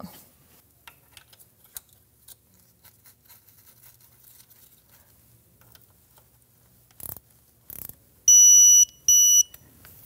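Crank sensor bolt being tightened with a digital torque wrench: faint clicks and handling noises, then two short electronic beeps in quick succession near the end, the wrench signalling that the set torque is reached.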